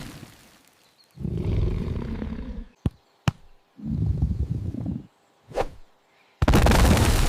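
Sound effects: three loud, deep, rough roar-like bursts, each about a second long and separated by silences, with two sharp clicks between the first two and a brief higher sound before the last.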